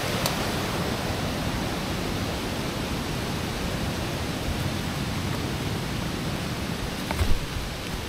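Steady rush of water from a jungle waterfall and stream, an even hiss with no let-up. A single low thump sounds about seven seconds in.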